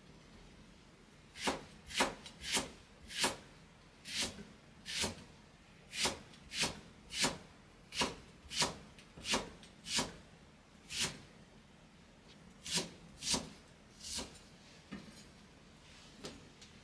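Kitchen knife slicing through a leek stalk and knocking on the cutting board: about twenty steady, evenly paced chops, a little under two a second. They begin about a second and a half in and stop about fourteen seconds in, with a couple of faint taps near the end.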